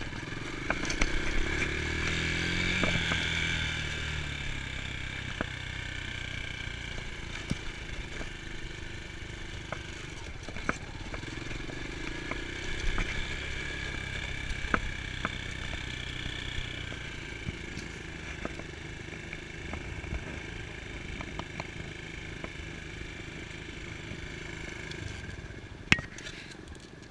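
Dirt bike engine running while the bike is ridden on a dirt track, revving up in the first few seconds and then running lower and steadier. Scattered clicks and rattles come through, with one sharp knock near the end.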